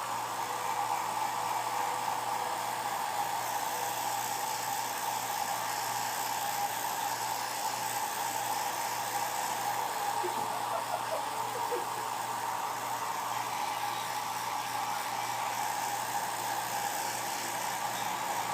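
Handheld hair dryer running steadily, a constant rush of air with a steady whine.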